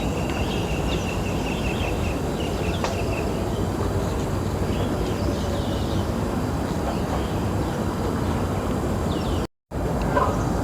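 Outdoor ambience: a steady low rumble with a few bird chirps over it, and a thin steady whistle-like tone in the first few seconds. The sound cuts out briefly near the end.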